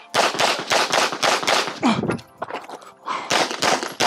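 Pistol shots fired rapidly while shooting a USPSA stage: a quick string of about six shots about a third of a second apart, a pause of about a second, then another fast string.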